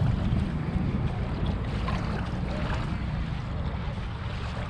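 Wind buffeting the camera microphone: a steady low rumble.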